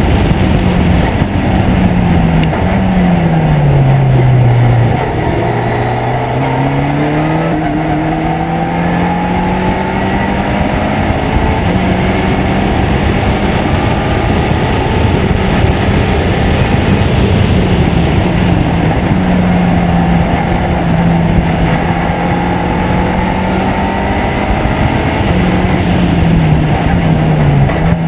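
Race car engine heard onboard from the open cockpit, with wind rush throughout. The engine note drops in several steps in the first few seconds, as on braking with downshifts, then climbs and holds steady, and steps down again near the end.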